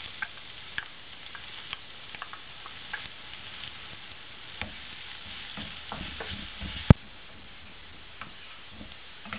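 Chopped onions sizzling in hot oil in a non-stick kadai with tempered spices, with scattered small clicks and the spatula stirring and knocking against the pan; one sharp knock comes just before seven seconds in.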